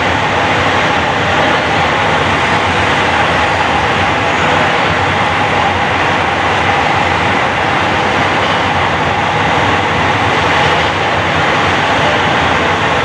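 LRT Jabodebek train running slowly past on the elevated track: a steady, even running noise with a faint held tone through it.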